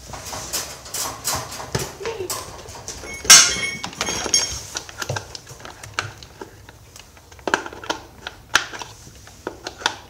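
Knocks and clatter of metal parts and tools being handled on a workbench, with one loud, sharp sound that rings briefly about three seconds in.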